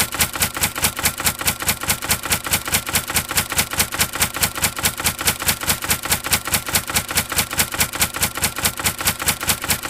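Typewriter key-click sound effect, a rapid, even run of sharp clicks at about six a second, matching the on-screen text being typed out.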